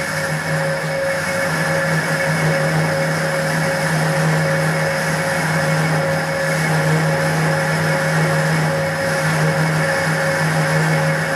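Lathe running under a facing cut, the cutting tool fed across the end face of the turning workpiece: a steady machine hum with a hiss of cutting over it, coming in abruptly at the start.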